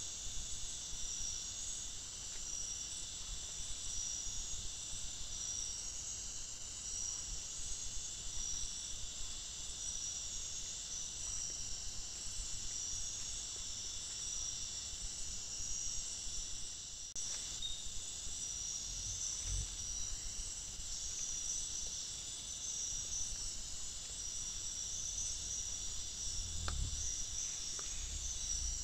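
Steady, high-pitched chorus of night insects in the forest, a pulsing trill that never stops, with a few low thumps near the end.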